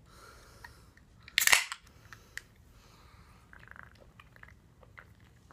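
Aluminium can of Surge soda cracked open by its pull tab about a second and a half in: one sharp snap with a short hiss of escaping carbonation. Faint small sounds follow a couple of seconds later as the can is drunk from.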